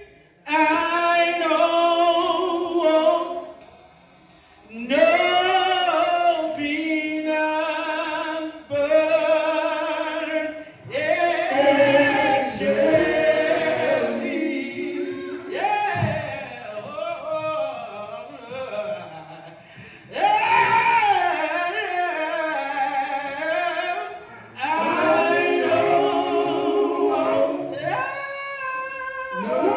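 Male gospel vocal group singing in close harmony into microphones, with no instruments, breaking off briefly about four seconds in before carrying on.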